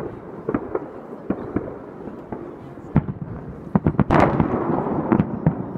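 Aerial firework shells going off in a string of sharp, irregular bangs. About four seconds in, the bangs come quickly together, and the sound stays loud afterwards.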